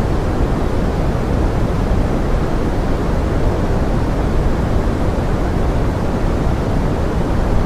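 Steady pink noise: an even, unchanging rushing hiss, heaviest in the low end.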